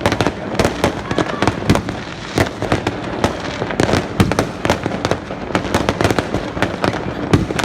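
Fireworks going off in a dense, irregular barrage of sharp bangs and pops, several a second, overlapping one another.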